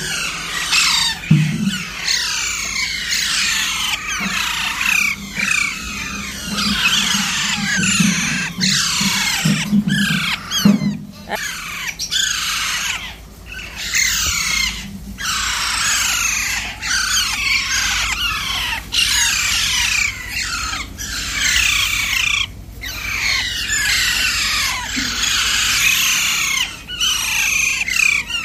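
Many caged small parrots chattering and squawking together in a dense, continuous din of overlapping short chirps and shrill calls.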